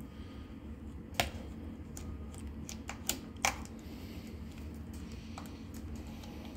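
A small screwdriver working at the screws in an RC buggy's plastic rear chassis: scattered light clicks and taps, with about three sharper clicks.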